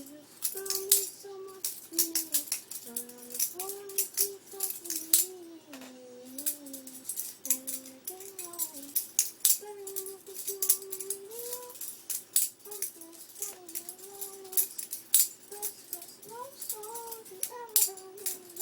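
Rapid, irregular metallic clicks of a butterfly knife's handles clacking and swinging as it is flipped, under a person humming a wandering tune.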